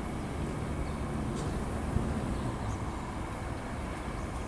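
Two NR class diesel-electric locomotives approaching at the head of a passenger train, with a steady low engine drone.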